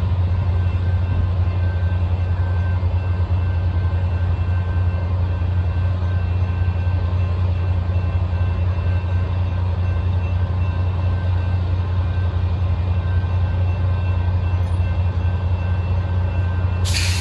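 Diesel locomotive of an ACE commuter train idling at the station: a steady low drone with faint steady whining tones above it.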